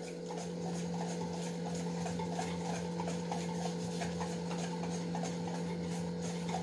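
A wire whisk stirring thick chocolate cake batter in a stainless steel bowl, with light regular strokes scraping and clicking against the bowl. A steady low hum runs underneath.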